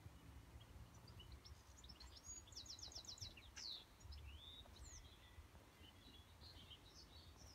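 Faint garden birdsong: a quick trill of about eight short high notes about two and a half seconds in, followed by scattered chirps and sweeping whistles, over a faint low rumble.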